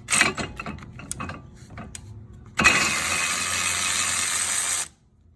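A few clicks and knocks of a tool being handled, then a cordless electric ratchet runs steadily for about two seconds, spinning out a loosened 18 mm caliper bracket bolt, and stops suddenly.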